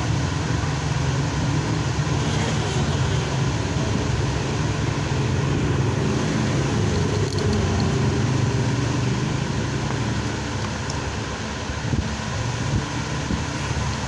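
Steady low background rumble, even and without speech, easing off slightly near the end, with a couple of faint ticks.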